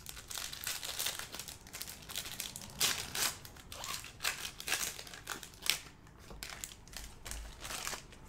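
Plastic wrapper of a basketball trading-card pack crinkling and tearing as it is opened by hand, a rapid irregular run of crackles.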